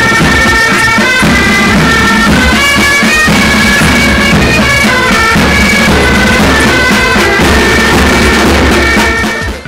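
Military pipe band playing: bagpipes carrying a melody over their steady drones, with snare and bass drums keeping time. The level drops away near the end.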